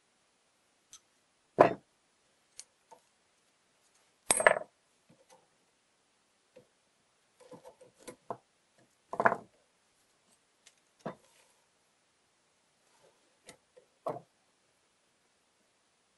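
Metal clinks and knocks from a steel window-fitting gearbox and its flat locking bar being handled and fitted together, with pliers set down and picked up: about five separate louder knocks, the loudest around four and a half and nine seconds in, with light clicks between.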